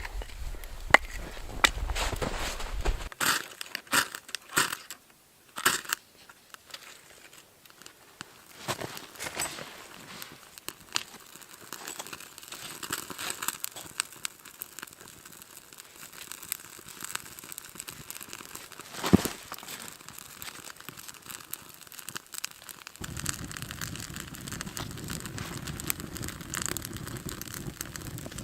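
Close crinkling, crunching and sharp snapping of fire-starting material and kindling being handled and broken while a campfire is laid. A steady low rush sets in near the end.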